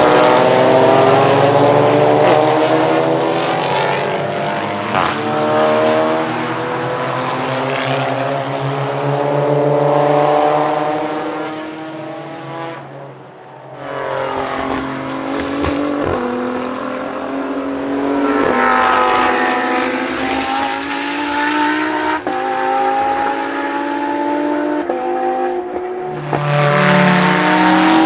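Race car engines accelerating hard up the track, several cars in a group, their notes rising in pitch as they pull through the gears. The sound fades briefly about halfway, then more cars come through, and another engine is loud near the end.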